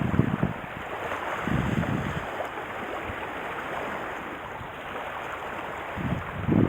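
Wind buffeting the microphone in low rumbling gusts, a few seconds apart, over a steady rush of water.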